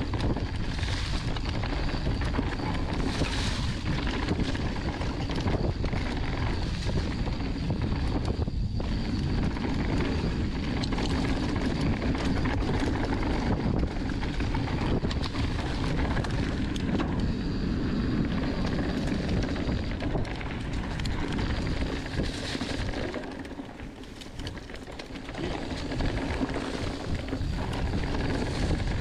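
Wind rushing over the camera microphone and mountain bike tyres rumbling over a dirt trail on a fast descent, with scattered clicks and knocks from the bike over bumps. The noise eases briefly about three-quarters of the way through, then picks up again.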